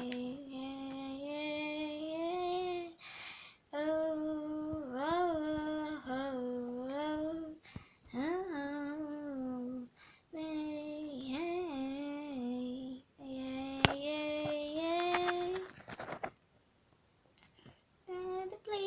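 A girl singing unaccompanied in long, held phrases that slide between notes, with short breaks between phrases; she stops a few seconds before the end.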